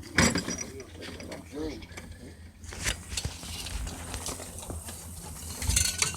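Clicking and rattling of a small ratcheting, geared mechanism being worked by hand, with scattered sharp clicks and a louder cluster of them near the end.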